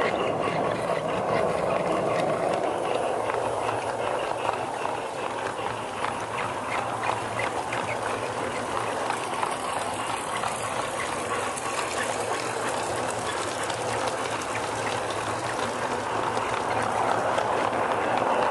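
G-scale model train rolling along garden railway track, heard up close from a camera riding on one of its cars: a steady rolling rush with many quick clicks from the wheels on the track and a low hum underneath.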